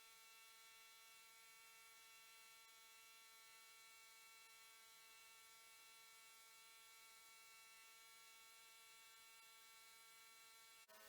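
Near silence with a faint steady hum of several held tones, which change to a different set of tones near the end.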